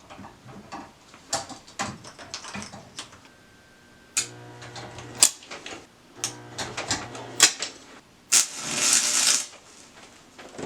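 Stick-welding arc being struck on thin steel pipe in short crackling spurts, with a low electrical hum under some of the strikes. The strikes are short tack welds. About eight seconds in, a longer hissing arc burns for about a second.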